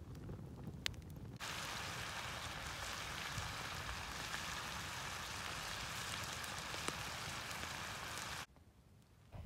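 Pieces of deer steak sizzling steadily in a cast-iron skillet over a campfire. The sizzle starts suddenly about a second and a half in and cuts off sharply near the end. Before it there is a low rumble with a single crackle.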